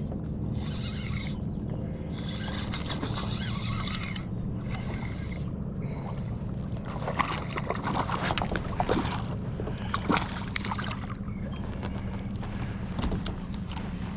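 Water sloshing and gurgling around a kayak over a steady low hum, with a run of clicks and rattles of gear being handled from about seven to eleven seconds in.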